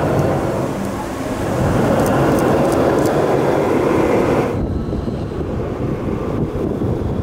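Ice Breaker's launched steel roller coaster train running along its track during launch testing: a loud, steady rushing rumble that drops off about four and a half seconds in.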